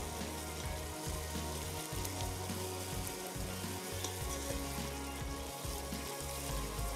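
Spice masala with tomato frying in oil in a pot, sizzling steadily as it is cooked down until the oil separates.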